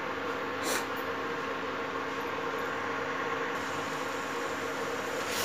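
A steady mechanical hum with an even hiss, and one short scrape about a second in, likely a spatula against the pan.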